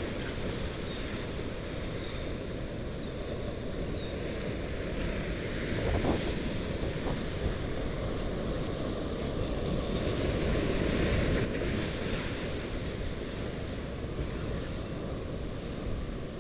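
Surf washing and breaking against jetty rocks, with wind buffeting the microphone. The wash swells about six seconds in and again around ten to twelve seconds in.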